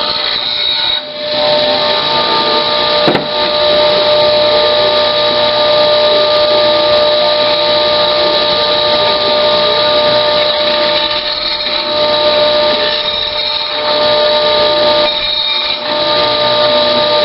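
Electric power tool running steadily while cleaning up the cut edges of steel, a motor whine over grinding noise, with brief drops about a second in and near the end as the tool eases off the work.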